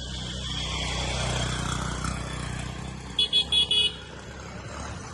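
A motor vehicle passing with a steady engine rumble, and a horn giving three short, high beeps a little over three seconds in.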